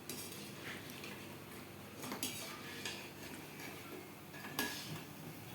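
A metal utensil clinking lightly against a kadai of frying batuk fritters: a few scattered taps over a faint steady hiss, the loudest a little before the end.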